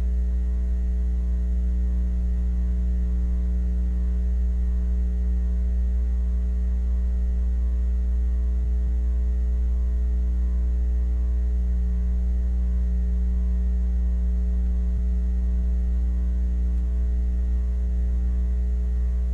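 Steady low electrical hum with a stack of fainter overtones above it, unchanging, with nothing else heard.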